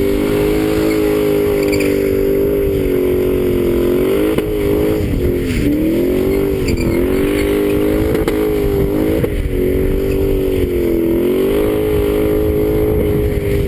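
BMW V8 engine held at high revs, its pitch dipping and rising again and again as the car spins its tyres in a smoking burnout.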